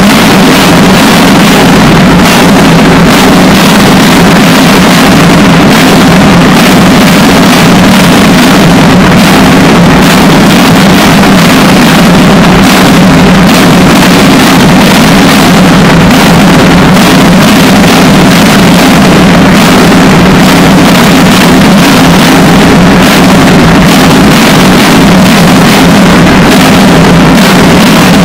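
Deliberately overdriven 'earrape' audio clipped to full scale: an unbroken, harsh buzzing drone, heaviest in the low-mid range, with no clear rhythm or melody.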